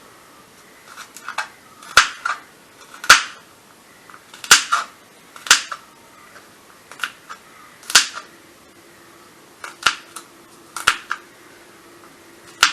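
Kitchen knife chopping garlic, ginger and lemon into small pieces on a cutting board: about fifteen sharp, irregular strikes, a few of them loud.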